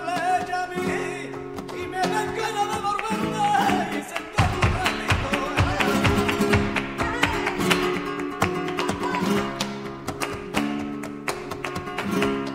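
Flamenco-style music: a singing voice over Spanish guitar for the first few seconds, then fast strummed guitar from about four seconds in.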